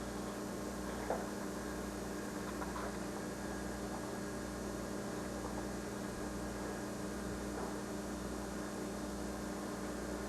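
Steady low electrical mains hum under faint hiss, with a small click about a second in.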